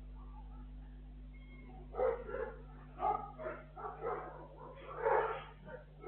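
A dog barking off-camera in a quick run of barks, starting about two seconds in, heard through a security camera's microphone over a steady electrical hum.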